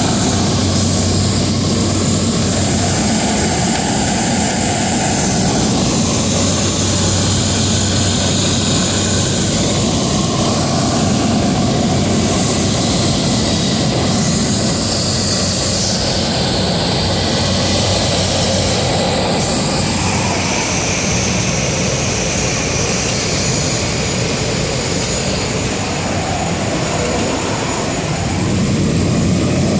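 Steady drone of a high-wing light aircraft's propeller engine mixed with rushing air, heard inside the cabin in flight.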